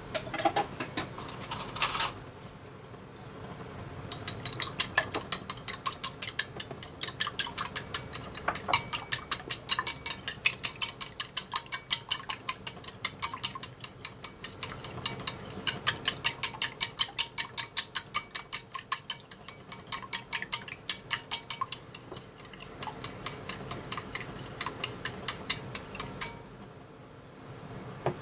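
Raw eggs being beaten with chopsticks in a ceramic bowl: fast, rhythmic clicking of the chopsticks against the bowl, several strikes a second, with a few short pauses, stopping a couple of seconds before the end.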